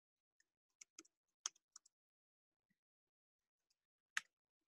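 Computer keyboard keystrokes: a few faint, scattered clicks, most in the first two seconds and one more near the end.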